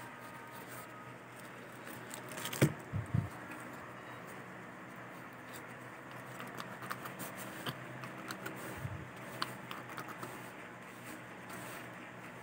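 Quiet room tone with scattered small clicks and taps, and a few louder thumps between two and a half and three seconds in.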